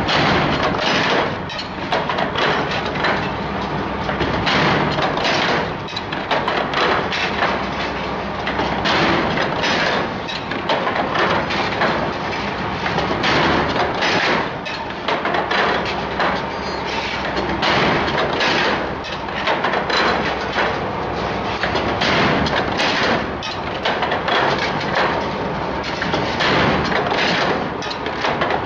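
Wire-forming machine for milk-can handles running, a steady clatter of rapid, irregular metallic strikes, several a second.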